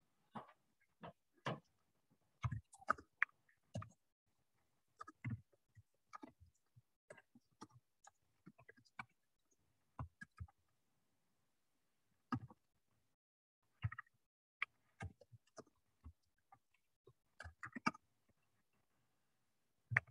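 Faint, irregular clicks and light knocks, scattered one or two a second with dead silence between them. This is small handling noise picked up by an open microphone.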